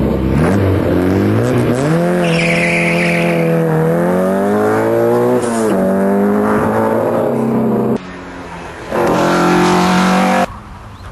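Opel Kadett C rally car's engine accelerating hard from a standing start, the revs climbing and dropping at each gear change, with a burst of tyre squeal about two seconds in. The sound cuts off suddenly at about eight seconds, and after a second another car's engine is heard at high revs, which also cuts off abruptly.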